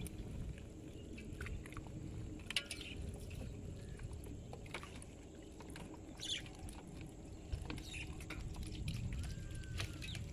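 Steady low rumble with scattered light taps and rustles from fishermen handling a nylon ring net and small fish in a wooden boat.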